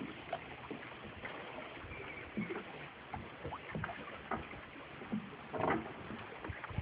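Sounds of a small fishing boat on the water: a low steady wash with scattered light knocks and clicks, and a short rustle about three-quarters of the way through.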